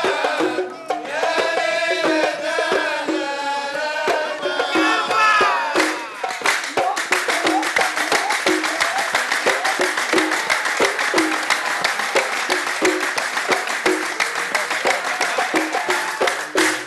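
Kuwaiti sawt music: men singing over a steady beat of mirwas hand drums. About six seconds in the singing stops and fast, even group hand clapping takes over, with the drum beats underneath.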